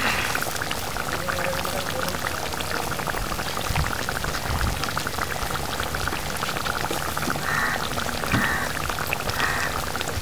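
Fish curry bubbling at a steady simmer in a metal kadai, a dense run of small popping bubbles.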